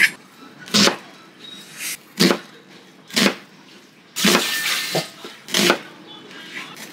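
Kitchen knife cutting an onion and striking the cutting board: about six slow, uneven chops, roughly a second apart.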